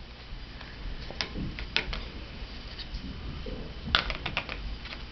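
Scattered light clicks and taps of toy play food and dishes being handled, irregular, with a small flurry of clicks about four seconds in.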